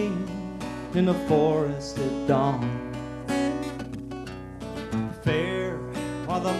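Acoustic guitar music, strummed, with held and gliding melodic notes over it.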